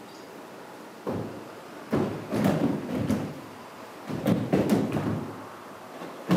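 Bare feet stamping and sliding on a wooden dojo floor and cotton gi sleeves snapping as a group of karateka performs kata together, coming in several short bursts of sharp strikes and thuds.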